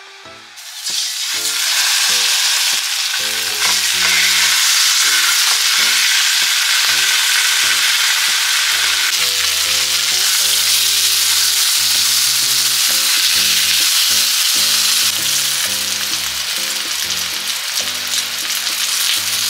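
Pork blocks searing in hot oil in a frying pan, a loud steady sizzle that starts about a second in: the surface of low-temperature-cooked roast pork being browned.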